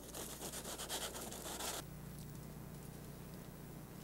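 Faint rubbing and scraping of garlic butter being spread by hand over a lengthwise-split loaf of bread lying on aluminum foil, stopping about two seconds in.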